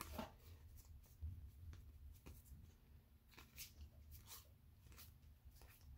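Faint, irregular flicks and rustles of cardboard trading cards as they are thumbed through one by one in the hand, over low room hum.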